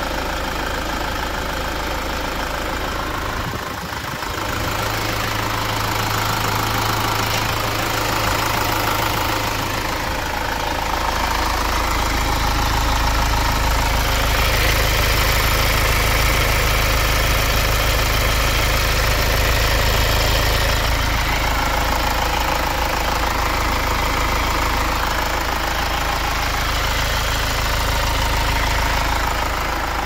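Diesel engine of an Iveco 72C17 truck running steadily. Its note dips briefly about four seconds in, then comes back fuller and a little louder around twelve seconds.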